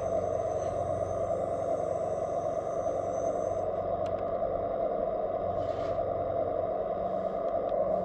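Radio-controlled scale tipper truck running, its electric drive and hydraulics giving a steady mechanical whine and hum as it drives slowly forward. A thin high whine stops about a third of the way in.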